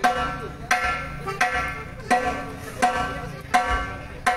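Timbal struck again and again in a soundcheck, about seven single hits at a steady beat of roughly one and a half a second, each with a sharp attack and a ringing pitched tone.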